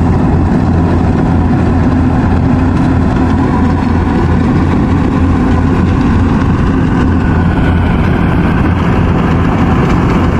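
Yanmar combine harvester's diesel engine running steadily while it cuts rice, a constant low drone with no change in pace.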